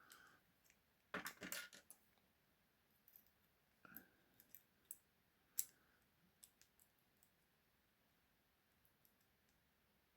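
Faint metallic clicks and scrapes of wire picks working inside a two-lever padlock: a quick cluster about a second in, then scattered single clicks over the next several seconds.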